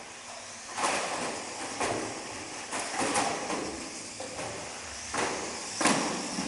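RC banger cars driving on carpet, with a series of sudden clattering bangs roughly a second apart as they crash into each other and the wooden track barriers.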